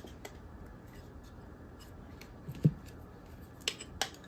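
Faint clicks and taps of a TV switchbox's plastic and metal parts being handled during teardown. A dull knock comes about two and a half seconds in, and two sharper clicks come near the end.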